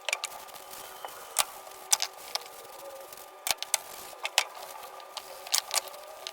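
Irregular light clicks and taps, about a dozen, from small objects being handled, over a faint steady hum.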